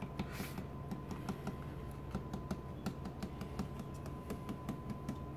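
Small irregular clicks and scrapes, a few each second, as a knife trims pie crust around the rim of a pie pan, the blade tapping the pan's edge. A faint steady hum runs underneath.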